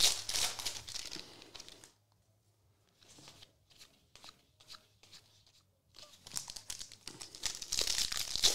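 A plastic trading-card pack wrapper being torn open and crinkled, then a quieter stretch of soft ticks from cards being handled, and a second wrapper crinkling and tearing near the end.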